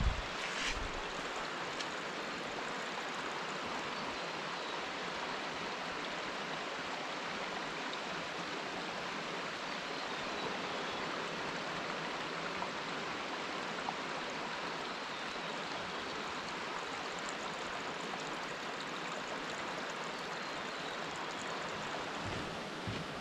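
River water running fast over and around the rocks along the bank: a steady, even rush of flowing water, with a couple of soft low bumps at the very start.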